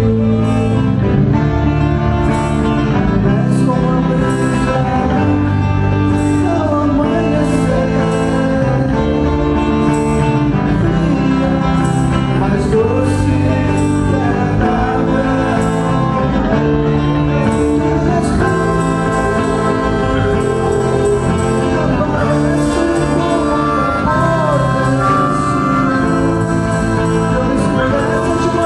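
A band playing live, with a voice singing over a steady beat.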